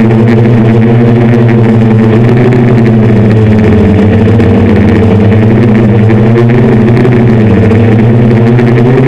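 Hexacopter's six brushless motors (750Kv Turnigy NTM) spinning 10-inch APC propellers in flight, a loud, steady, layered drone whose pitch wavers slightly as the throttle changes.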